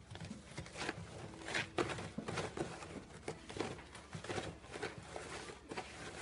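Paper towel rustling in quick, irregular strokes as a cat paws sheets off the roll on its holder.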